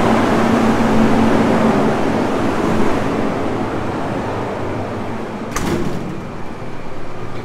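Steady rushing air of a running automotive paint spray booth, easing off about three seconds in, then one sharp knock about five and a half seconds in.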